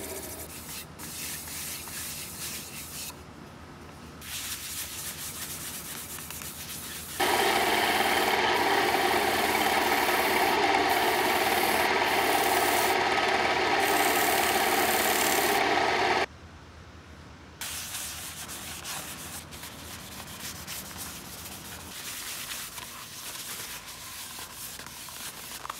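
Walnut plate spinning on a wood lathe, being sanded and then wiped: abrasive rubbing at first, then a much louder steady rubbing hiss of a cloth pressed against the spinning wood for about nine seconds, cutting off abruptly, followed by quieter hand rubbing with a paper towel.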